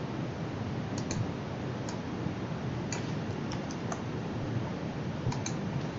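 Scattered clicks from a computer keyboard and mouse, single and in quick pairs, over a steady background hiss: numbers being typed into a software field.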